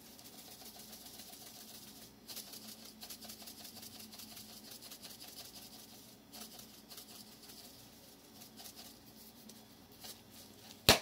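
Dried parsley being shaken out of a spice container: a soft, quick pattering that comes and goes, then one sharp click near the end.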